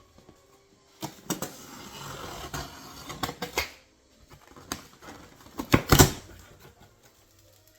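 Large cardboard shipping box being cut and opened: a stretch of scraping and rustling cardboard, then a few sharp knocks and snaps, the loudest about six seconds in.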